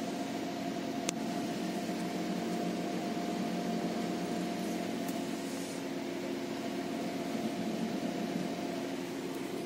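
Steady hum of a Renault Scenic II's ventilation blower and idling engine with the air conditioning running after repair, with a single sharp click about a second in.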